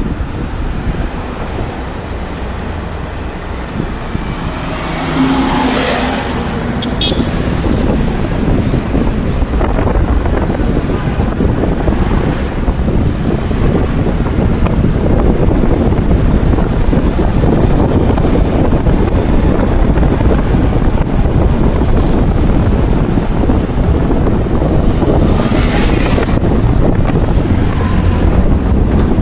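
Steady low road rumble and wind buffeting the microphone from a vehicle driving along a paved street. Passing traffic swells louder about five seconds in and again near the end.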